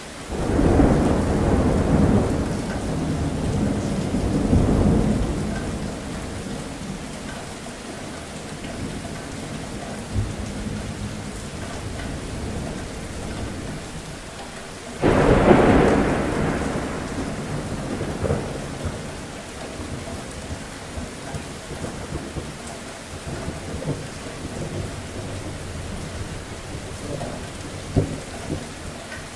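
Steady rain with thunder. The first rumble starts right at the beginning and lasts about six seconds. A second one breaks suddenly about halfway through and fades over several seconds.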